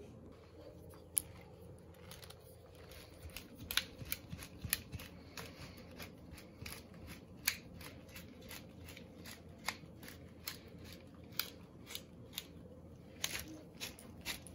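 Seasoning being shaken from a small hand-held spice container over a cheese-topped pizza: a faint, irregular string of sharp clicks and taps, a couple a second, bunching together near the end.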